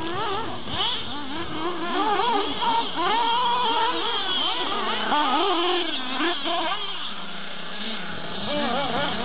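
Small nitro glow engine of a radio-controlled off-road buggy revving up and down over and over with the throttle, its high buzzing pitch swooping in quick rises and falls. It eases off to a lower, quieter note shortly before the end, then revs up again.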